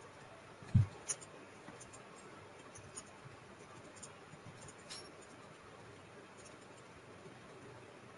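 Faint computer keyboard typing, scattered light key clicks over a steady low hiss, with one low thump about a second in.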